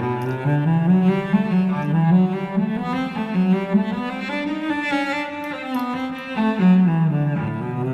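Background music led by low bowed strings like cello and double bass, playing a moving melodic line.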